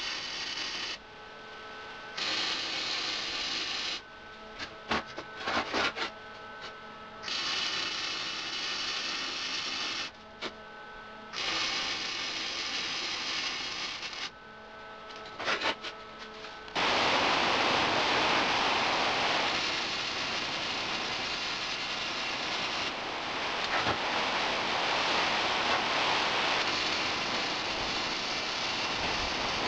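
Lincoln flux-core wire-feed welder arc sizzling in a run of short welds of two to three seconds each, with a few sharp clicks in the pauses between them. From about 17 seconds in it settles into one long, louder continuous bead.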